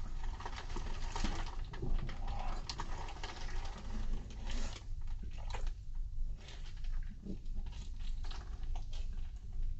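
Close-miked chewing and lip smacking of a bologna sandwich: irregular wet clicks and crackles of a mouth working food.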